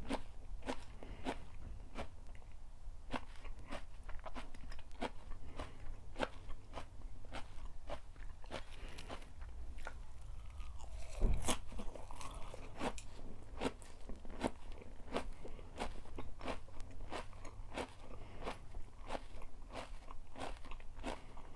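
Close-up chewing of crunchy food, a steady run of crunches about two a second, with one louder knock about halfway through.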